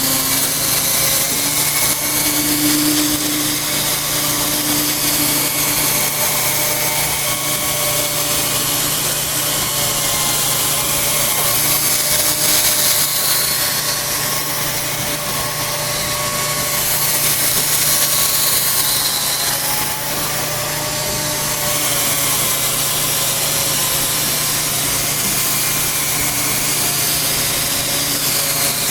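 Electric drill spinning a foam polishing ball against a plastic headlight lens, buffing out the oxidation. It runs steadily with a rubbing hiss, its pitch wavering slightly as the speed and pressure change.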